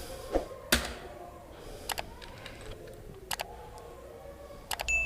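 A few scattered keystrokes on a computer keyboard, irregular and spaced out. A steady high beep starts near the end.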